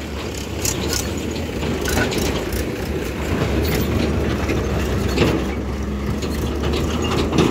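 Diesel tractor engines running steadily with a low, even hum, overlaid by scattered clanks and rattles.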